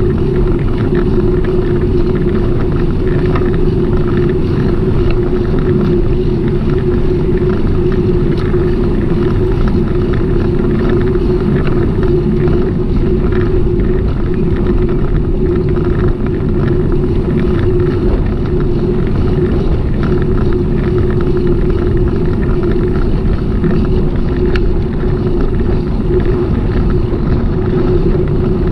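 Steady rolling and wind noise from a moving bicycle ride, over a constant hum.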